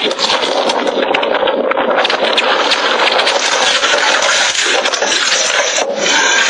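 Loud rushing roar of fire with dense crackling, picked up by a phone's microphone in the burning wreckage after the plane crash.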